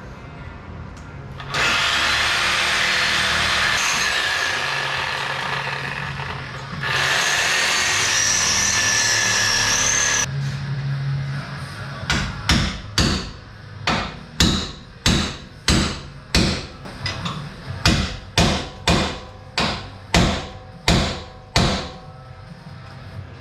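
Angle grinder grinding through the welds of a steel motor mount, running steadily for about eight seconds with a brief easing partway. Then a run of about sixteen sharp metal strikes, roughly one and a half a second, as the mount is knocked off the frame.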